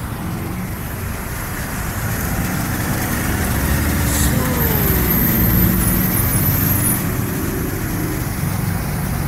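City road traffic passing on the street below, with engine and tyre noise from cars and a bus. It swells as a vehicle passes close, loudest about five to seven seconds in, then eases.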